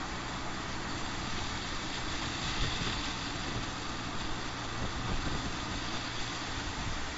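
Volkswagen Taigo small SUV driving past, with steady tyre-on-road noise over a low engine hum. The noise swells about two and a half to three seconds in as the car comes closest.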